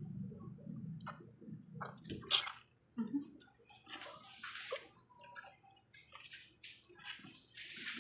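Wet slurping and smacking of a two-week-old pug puppy sucking milk from a feeding syringe, with scattered handling clicks. A single sharp click about two and a half seconds in is the loudest sound.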